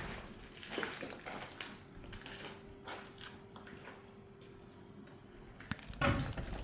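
Faint, irregular footsteps and scuffing, with a faint steady hum through the middle; the footsteps grow louder near the end.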